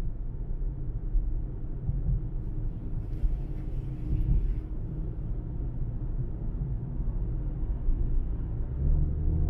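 Steady low rumble of a car driving on a highway, engine and tyre noise together, with a brief faint hiss about three seconds in.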